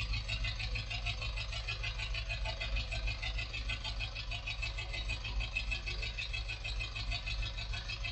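Ford Transit Mk5 diesel engine idling steadily, with a fast, even clatter.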